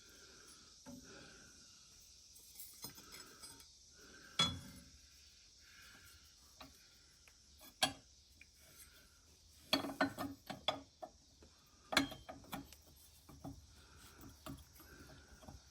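Small metal parts of a mower's blade-belt tensioner clinking and knocking lightly as they are handled and fitted. The light knocks are scattered, busiest about ten to twelve seconds in.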